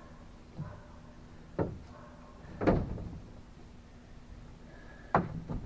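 Four separate knocks and clunks, spread a second or more apart, with the loudest near the end, over a faint steady low hum.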